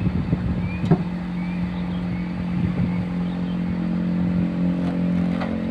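Truck engine running steadily at a constant pitch. There is a single sharp knock about a second in, and wind buffets the microphone during the first second.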